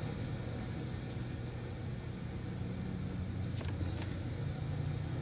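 Steady low room hum, with a couple of faint ticks about three and a half seconds in.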